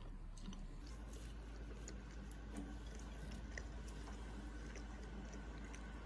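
Faint eating sounds: soft chewing of braised fish, with a few small clicks of wooden chopsticks.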